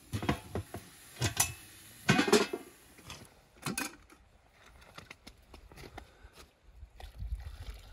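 Cookware being handled: a few separate knocks and clanks, the loudest about two seconds in, then smaller ticks. A low rumble starts near the end.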